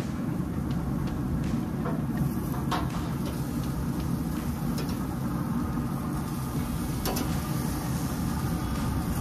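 Metal spatula scraping and clicking a few times against a pellet grill's grate as it is run under turkey burgers to free them from sticking, over a steady low rumble.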